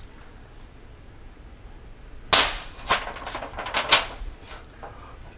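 Aluminium foil lid on a foil pan crinkling, with a few sharp crackles and snaps as a thermometer probe is pushed through it. The crackling starts a little over two seconds in, loudest at first.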